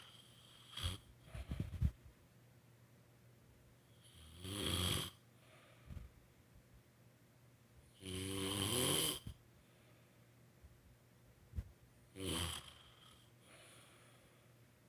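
A woman snoring in her sleep: three long snores about four seconds apart, each lasting about a second, with a few shorter, sharper noises in the first two seconds.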